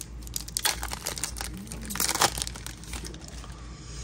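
Foil booster-pack wrapper crinkling and tearing as it is pulled open by hand, in a string of irregular crackles.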